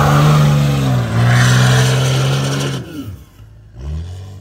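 Cummins diesel engine of a lifted pickup revving hard under load as its tires spin in snow, its pitch dipping briefly about a second in. The engine note cuts away near three seconds in, leaving a much quieter stretch.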